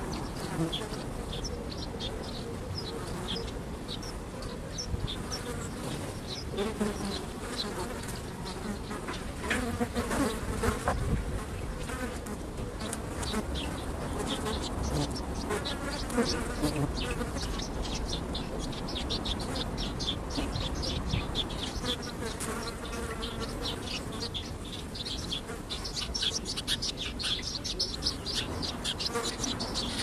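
Flies buzzing around and landing, with a scatter of quick, high chirps throughout and a few louder passes.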